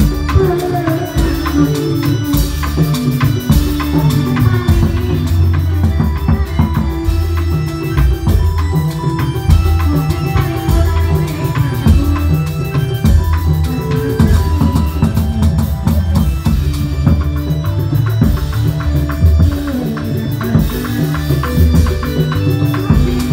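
Loud Reog Indramayu dance music: a steady drum beat with melodic keyboard lines over it.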